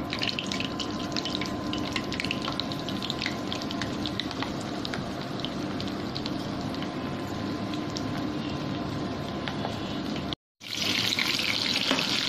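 Gram-flour-battered ivy gourd strips sizzling and crackling as they deep-fry in hot oil in a pan. The sound cuts out for a moment about ten seconds in, then comes back louder.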